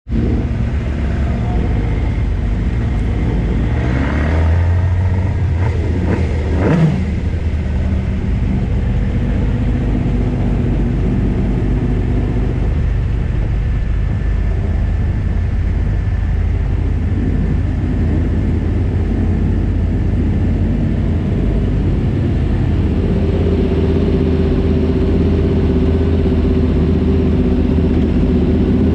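Motorcycle engine running at low revs on the move, with a few short blips of the throttle about four to seven seconds in, then idling steadily alongside other motorcycles idling nearby.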